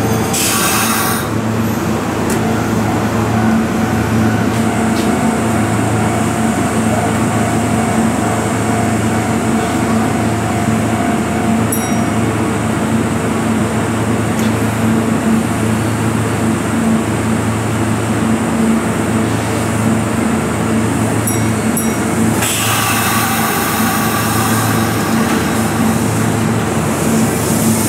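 Electric commuter trains at a station platform: a steady low electrical hum that swells about every two seconds, with a faint motor whine in the first part. Near the end, the rumbling and brake noise of an express train pulling in and slowing to a stop grow louder.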